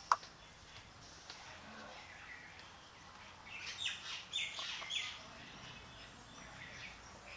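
Small birds chirping in short high-pitched calls, busiest around the middle, with one sharp click just at the start.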